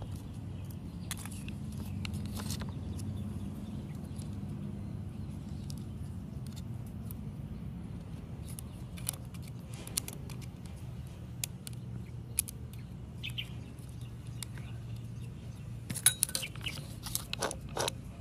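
Small sharp clicks and taps of a screwdriver and small metal parts as an angle grinder's switch and wiring are worked on, coming in a quick cluster near the end, over a steady low hum.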